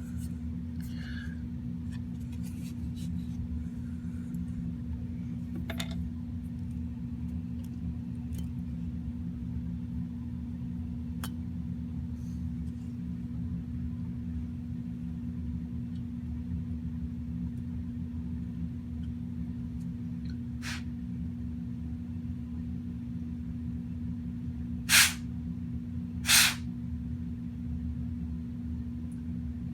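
Two short blasts from a can of compressed computer air, about a second and a half apart, blown between the fins of a graphics card's heatsink, over a steady low background hum.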